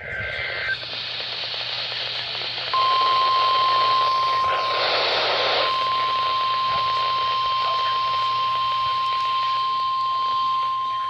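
Emergency Alert System broadcast received over NOAA Weather Radio with steady static hiss: a short burst of SAME header data tones at the start, then, about three seconds in, the steady single-pitch 1050 Hz warning alarm tone that comes before a severe thunderstorm warning.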